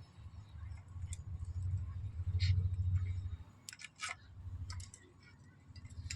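Knife cutting raw goat fat into small pieces, heard as a few sharp taps and clicks of the blade, most of them in the second half. Under them is a low rumble that is loudest through the middle.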